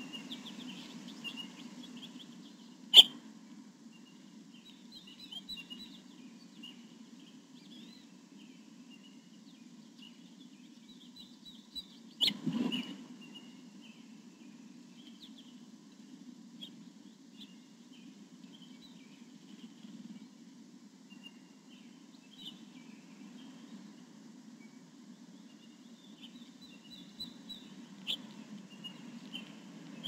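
Wild songbirds chirping and calling, many short high chirps scattered throughout over a steady low hum. Two sharp knocks come about 3 and 12 seconds in; the first is the loudest sound.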